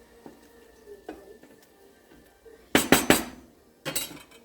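Cooking utensil clattering against a skillet: a quick run of three or four loud knocks about two and a half seconds in, then a second, shorter clatter near the end.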